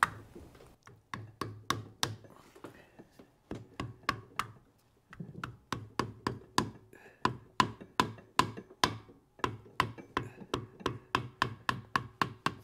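A replacement rear main seal is being tapped into a Chevy 2.2 Ecotec engine block with a small hammer, driven in until it bottoms out. It is a steady run of light knocks, about three a second, with a short pause a little before halfway.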